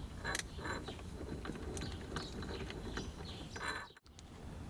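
Light clicks and rattles of small metal and plastic parts being handled at a car's steering column as wiring is tucked away and a steering wheel hub is fitted. The sound cuts out briefly near the end.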